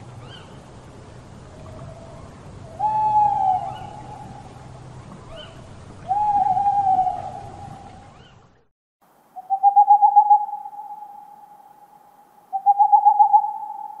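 Owl hooting: a faint hoot, then two loud drawn-out hoots about three seconds apart, each sliding down in pitch at the end, over a low steady hum. After a sudden cut to silence about eight and a half seconds in, a different recording brings two quavering, wavering hoots about three seconds apart.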